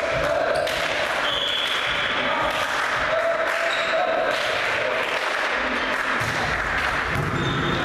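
Volleyball match in an echoing sports hall: a din of voices and chanting from players and spectators, with scattered thuds of the ball being served and struck. The low thudding picks up near the end as a rally starts.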